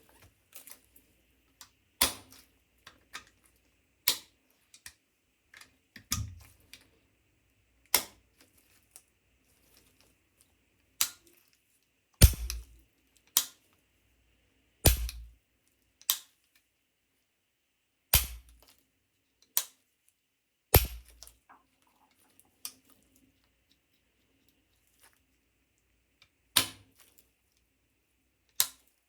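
A series of sharp metallic clicks and snaps, spaced irregularly about one to two seconds apart, a few of them louder with a dull knock underneath.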